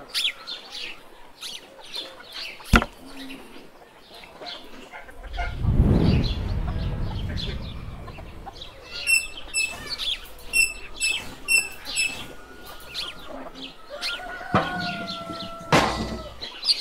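Chickens clucking with small birds chirping, broken by light clicks. A low rumble rises about five seconds in and fades over the next few seconds.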